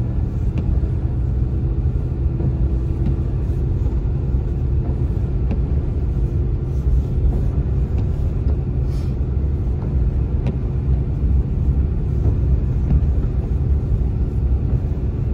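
Car driving through deep, untracked snow: a steady low rumble of the engine and tyres pushing through the snow, with a few faint ticks.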